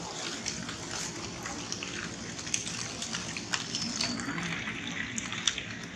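A steady rushing hiss with scattered sharp crackles of dry leaves and stones as a troop of macaques moves and feeds, and a few faint high chirps about four seconds in.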